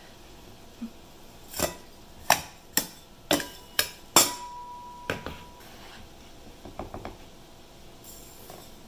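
A metal measuring cup knocked against a stainless steel canning funnel set in a glass jar, tapping out packed brown sugar: about six sharp metallic knocks, the last one leaving the funnel ringing for a second or so, then a few lighter clinks near the end.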